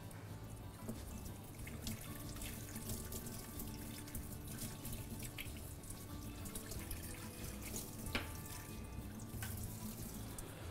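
Water running from a kitchen tap as something is rinsed, with a few light knocks, over faint background music.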